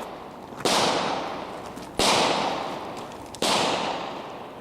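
Mossberg 590 pump-action shotgun firing slugs: three shots about a second and a half apart, each followed by a long fading echo.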